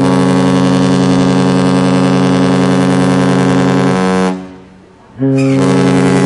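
Carnival Pride cruise ship's deep horn sounding a very loud, steady long blast of about four seconds. It cuts off, and a second blast starts about a second later.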